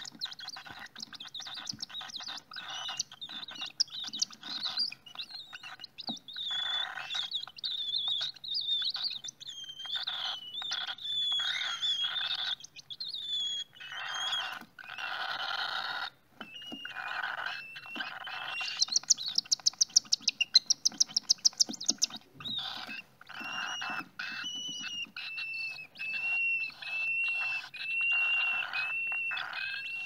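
Cockatiel chicks in the nest box giving raspy, repeated begging calls, with squeaky notes laid over them. About two-thirds of the way through comes a fast, loud run of rasping pulses, and near the end a steady string of short, evenly spaced chirps.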